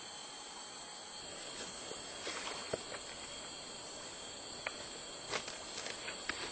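Rainforest insects keep up a steady high-pitched chorus of several held tones, with a few faint clicks and knocks scattered through the middle.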